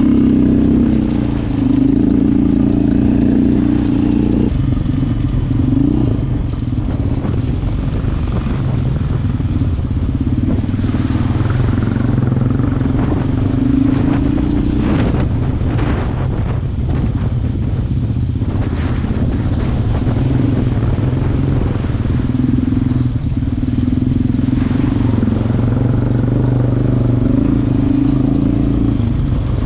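Sport quad (ATV) engine running as it is ridden over a rocky dirt track, its note rising and falling with the throttle. Short knocks of stones and rough ground come through around the middle.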